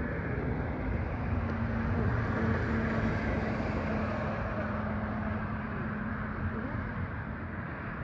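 A steady engine drone whose low hum fades about halfway through.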